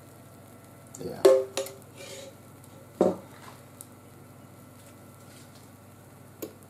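A metal spoon clinking against a batter bowl: a few sharp knocks with a short ring, the loudest about a second in and another about three seconds in, over a faint steady hum.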